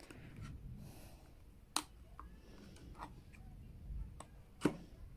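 Handling noise as an iPhone is set down and positioned on a printed cardboard alignment card on a table: faint rubbing and shuffling with two sharp taps, the louder one near the end.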